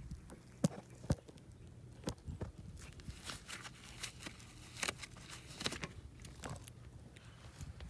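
Scattered small clicks and short rustles over a faint steady hum, most of them bunched together in the middle.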